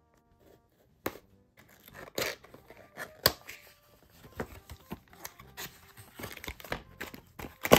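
A small printed cardboard toy box being opened by hand. A sharp snap comes about a second in, then irregular scraping, clicking and crinkling of cardboard and plastic packaging.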